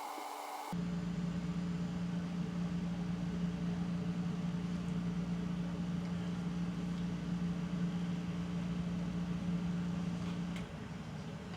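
A steady mechanical hum with a constant low tone, starting abruptly about a second in and easing off slightly near the end.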